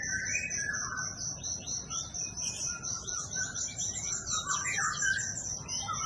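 Songbirds chirping and singing in quick, varied phrases, over a steady high-pitched insect drone.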